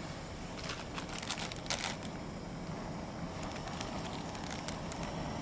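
Plastic food packaging crinkling in clusters of sharp crackles as a noodle packet is handled, over the steady hiss of a gas canister stove burner.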